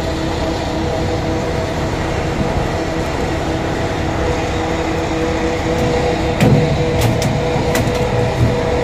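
Boat engine running steadily. About six and a half seconds in a landed dorado thuds onto the deck, then several sharp slaps follow as it flaps about.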